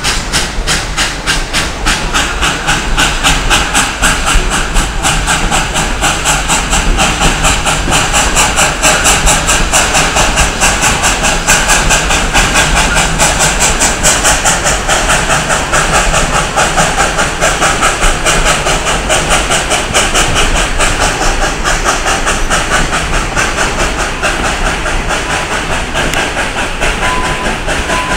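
Narrow-gauge steam locomotive working steadily with a rapid, even chuff and steam hiss, together with the rattle of the passenger cars' wheels on the rails, heard from an open car behind the engine.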